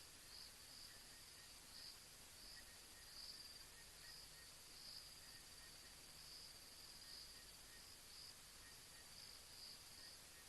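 Faint, high-pitched trilling of night insects, steady, with the trill swelling every second or so.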